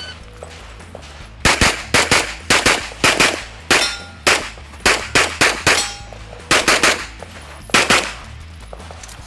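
Shot-timer start beep, then a rapid string of about twenty handgun shots, mostly in quick pairs. The shots begin about a second and a half in and stop about a second before the end.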